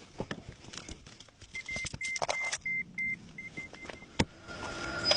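Getting into a Toyota car: clicks and key rattles, then the car's warning chime beeping repeatedly at one steady pitch for a couple of seconds. A sharp click follows, and near the end a steady running sound builds as the engine comes in.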